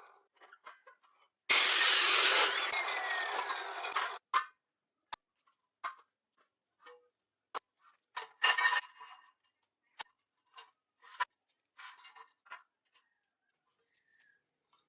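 Workshop tool noise: a loud rasping burst lasting about two and a half seconds, starting a second and a half in, then a run of short sharp clicks and knocks.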